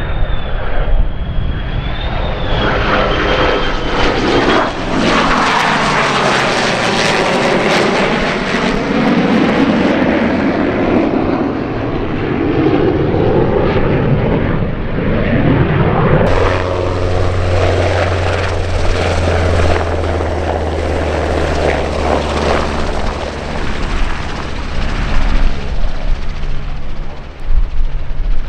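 F-35 fighter jet and P-51 Mustang flying past together, their engine noise sweeping down in pitch as they pass. About 16 seconds in it cuts abruptly to a steady, lower aircraft engine drone.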